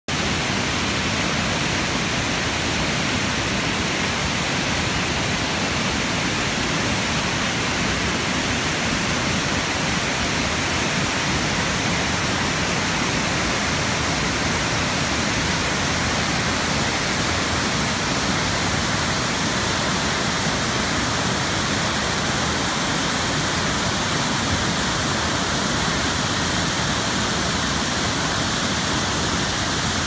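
Nugget Falls, a large waterfall, pouring down rock ledges and crashing onto rocks and shallow water: a loud, steady rush of falling water with no breaks.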